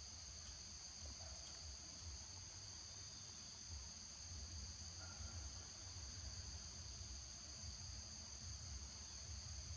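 A steady, high-pitched insect drone of cicadas or crickets, holding two even pitches, over a faint low rumble.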